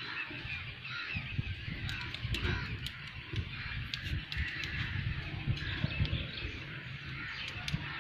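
Birds calling in the background over a steady low rumble, with scattered light clicks and taps.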